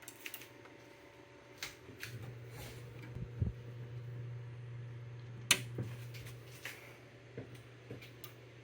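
Old computer case fan inside a desktop PC making an abnormal noise: a low buzzing hum that swells for a few seconds and then eases, with irregular clicks, the sharpest about five and a half seconds in.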